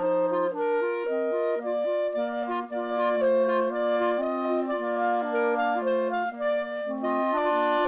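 Instrumental music with a woodwind-like sound: several parts playing a melody in harmony, notes changing about every half second.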